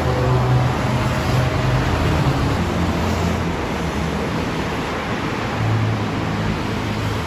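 City street traffic: a steady wash of road noise under the low drone of vehicle engines running.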